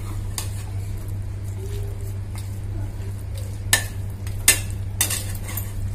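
A perforated steel ladle stirring raw mutton and spices in a pressure cooker, scraping and knocking against the metal pot, with a few sharper clinks in the second half.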